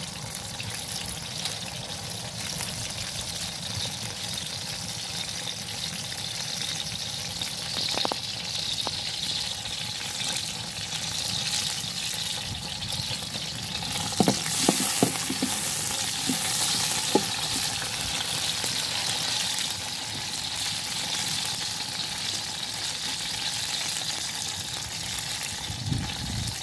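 Whole garlic cloves sizzling steadily in oil in a steel wok over a wood fire. About halfway through, a wooden spatula stirs them, knocking a few times against the wok, and the sizzle gets brighter.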